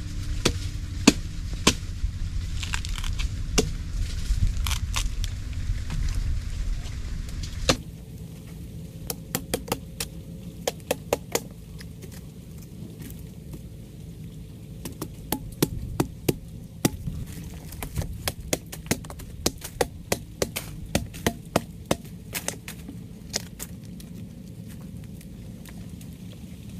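An irregular series of sharp cracks and knocks, some coming in quick groups of three or four. For the first eight seconds they sit over a loud low rumble, which drops away suddenly.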